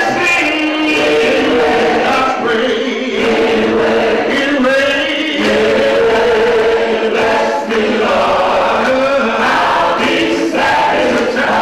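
Gospel choir of men and women singing together, led by a man at a handheld microphone.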